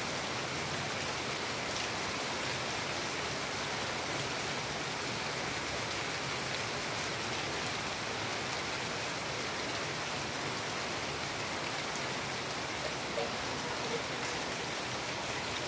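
Heavy rain pouring steadily onto a paved yard and a flooded street, a dense, even hiss with a few sharper drops standing out near the end.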